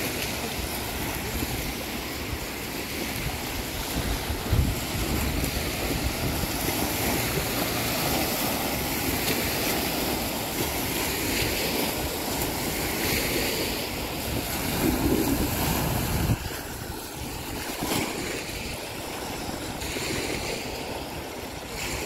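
Wind buffeting the microphone over small waves washing on the shore, an even rushing noise with low rumbling gusts. The gusts are strongest about four seconds in and again around fifteen to sixteen seconds.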